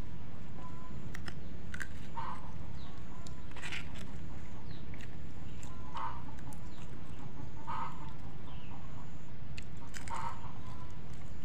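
Chickens clucking now and then, four short calls a couple of seconds apart, over a steady low rumble, with faint high bird chirps.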